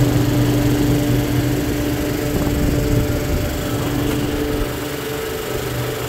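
Walk-in cooler evaporator fans running: a steady motor hum over the rush of air through the coil. One fan is a newly fitted Hussmann evaporator fan motor with an 8-inch blade that came bent and was straightened by hand, though not perfectly.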